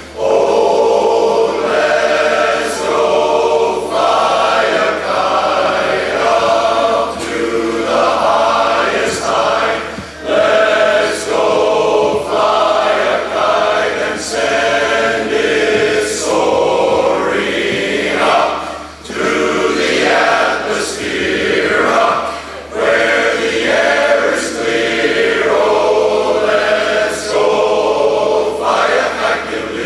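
Men's barbershop chorus singing a cappella in close four-part harmony, in continuous phrases with brief breaths between them.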